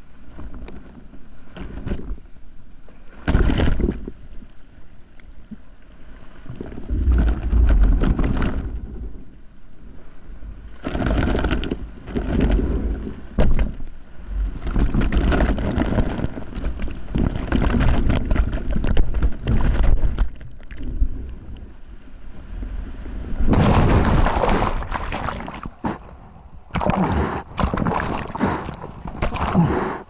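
Seawater rushing and splashing over a wave-level action camera as a bodyboarder rides a breaking wave, in irregular surges with heavy low buffeting. About 23 seconds in the sound turns bright and hissy, with sharp splashes as the whitewater breaks around the camera.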